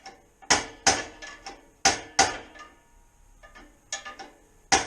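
Hammer blows on the stuck stock exhaust of an ATV, struck to knock it free. The blows come mostly in pairs with pauses between, and each strike rings metallically. Lighter taps fall between the strong blows.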